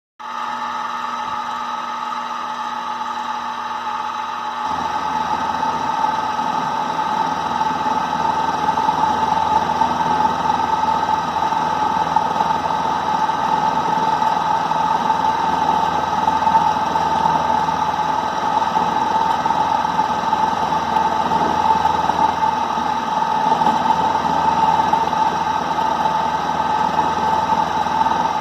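Klutch benchtop mini milling machine running with a steady high whine. About five seconds in, the sound grows louder and rougher and then holds steady.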